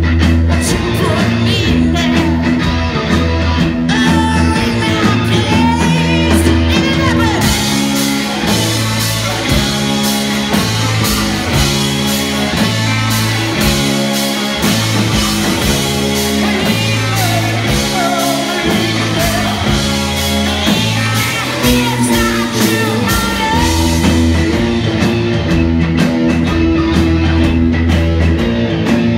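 Live rock band playing loudly: distorted electric guitar, bass guitar, drums and keyboard. The drummer's cymbals come in heavily about seven seconds in and drop back near the end.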